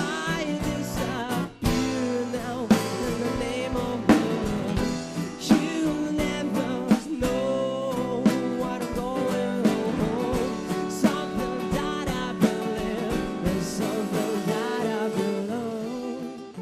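Live band playing a song: a singing voice over guitars and a drum kit. The music dies away near the end.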